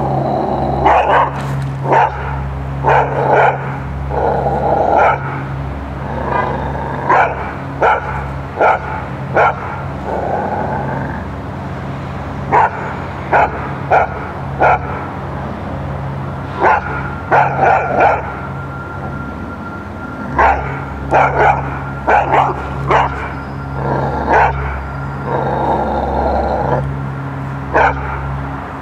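Belgian Malinois barking repeatedly in short runs of two to four sharp barks, aggressive barking at a trainer.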